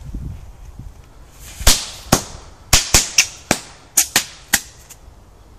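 Nico giant jumping-jack firecracker (Riesenknallfrosch) going off on the ground: about ten sharp bangs in an irregular run lasting some three seconds, starting about a second and a half in.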